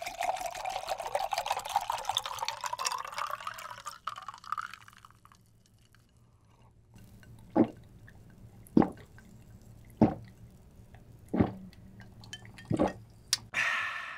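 Grape juice poured from a plastic bottle into a glass, the filling sound rising in pitch for about five seconds. After a short pause, five loud gulps at an even pace as the juice is drunk, followed by a brief satisfied 'ah' near the end.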